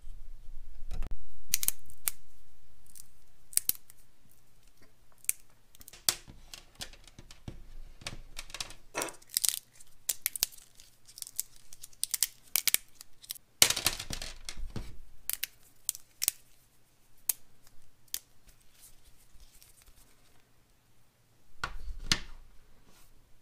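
Plastic glow sticks and a plastic handle connector handled on a table: an irregular run of light clicks and taps, with a few longer rustling stretches.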